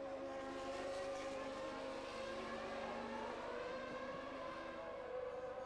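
Formula One cars running slowly in a queue behind the safety car, their engines held at steady, moderate revs in a high whine. The pitch sags a little and then climbs again near the end.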